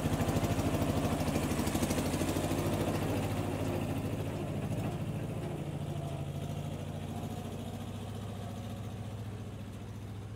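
Domestic cat purring close to the microphone: a steady, low, fast-pulsing rumble that slowly softens.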